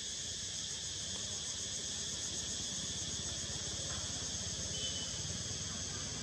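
Steady, high-pitched chorus of insects chirring with a fine pulsing texture, unbroken throughout.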